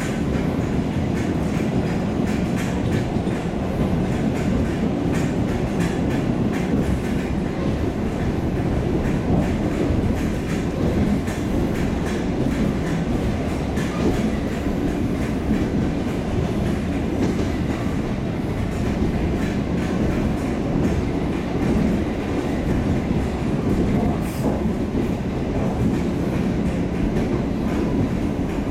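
EP2D electric multiple unit running along the track, heard from inside the carriage: a steady rumble of wheels on rails with frequent clicking over rail joints.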